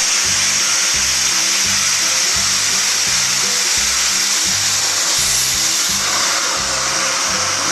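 Arçelik 4540 bagged vacuum cleaner running steadily with a loud, even hiss while it sucks a toy doll's hair through a hair tie. Background music with a steady beat plays underneath.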